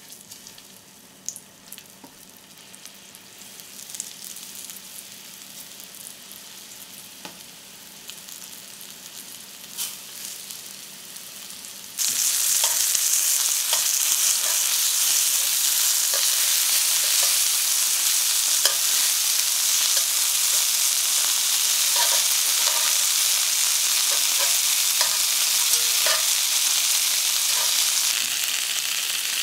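Flour-coated chicken strips frying in hot oil in a metal frying pan, sizzling, with light clicks of metal tongs as the strips are laid in and moved. The sizzle is quiet at first and jumps suddenly to a loud, steady frying hiss about twelve seconds in.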